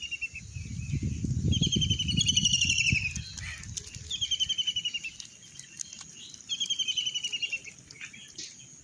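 A bird repeats a short, fast, high trill every second or two. A low rustling rumble, the loudest sound, runs through the first three seconds or so.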